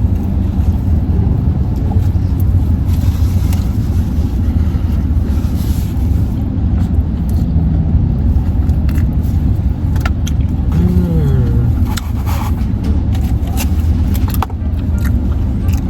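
People eating takeout food: scattered clicks, taps and rustles of containers and utensils over a steady low rumble, with a short hummed 'mm' about eleven seconds in.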